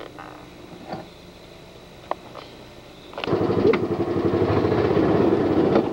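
A few small handling clicks, then an ATV engine running close by starts abruptly about three seconds in, with a rapid low pulsing.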